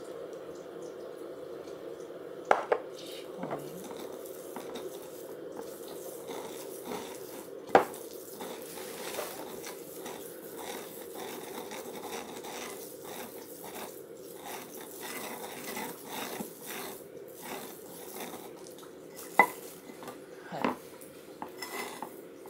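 Wooden pestle grinding in a ceramic suribachi mortar: a steady scraping rasp of wood working a paste against the bowl's ridged inside, with a few sharp knocks along the way.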